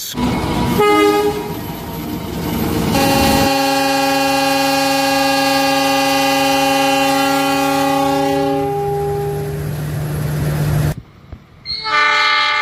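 Passing diesel train noise, then a diesel locomotive's multi-tone air horn sounding one long blast of several notes at once for about six seconds. The sound cuts off abruptly, and a second horn chord begins near the end.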